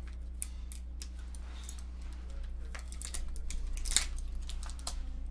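Aluminum-foil lollipop wrapper crinkling and crackling as it is handled and unwrapped, in scattered small clicks, the sharpest about four seconds in, over a low steady hum.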